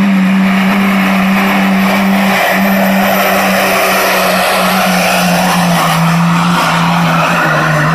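Diesel pickup truck engine at full throttle, dragging a weight-transfer sled in a pulling run. It holds one high, steady note that sags slightly as the run goes on, over a thick rush of exhaust noise.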